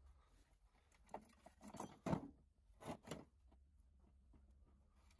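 Rusty metal clattering and knocking as an old bench vise is lifted out of a pile of scrap: a sharp knock about a second in, a short clatter peaking about two seconds in, then two more knocks about three seconds in.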